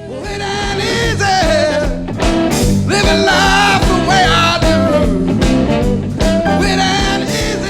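Closing music: a song with a singing voice and guitar over a bass line.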